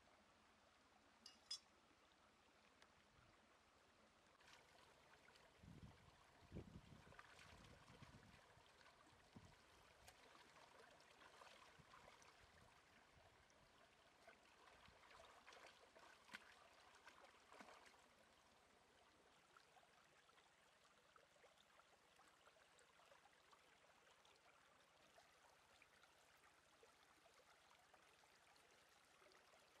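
Faint trickle and splash of a shallow rocky stream, busier for a stretch in the middle as something is splashed and handled in the water, with a few soft knocks.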